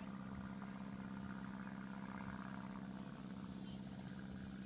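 Summer outdoor ambience: a steady low hum under insects chirping high in a fast, even rhythm.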